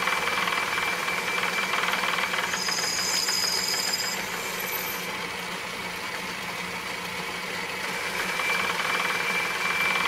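Atlas metal lathe running with its motor-driven lead screw powering the carriage feed: a steady mechanical whir with a high whine. About halfway through the whine and some of the noise drop out, then return near the end: the limit switch shuts off the feed motor as the carriage reaches the shoulder, and backing away restarts it.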